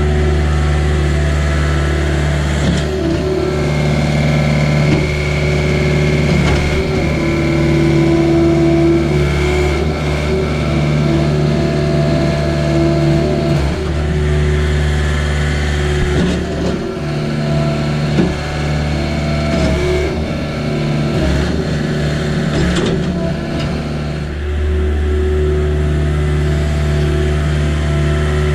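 Engine of heavy farm machinery running steadily, with a high whine for several seconds near the start.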